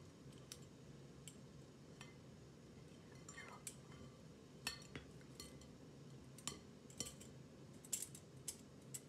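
Faint, scattered clinks and taps of a metal collapsible steamer basket against a glass bowl as steamed taro slices are pushed off it with a silicone spatula. The taps come more often and a little louder in the second half.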